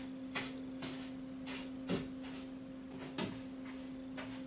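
Irregular knocks and taps from people walking and working on the roof overhead, a couple each second, with two heavier thuds about two and three seconds in. A steady low hum runs underneath.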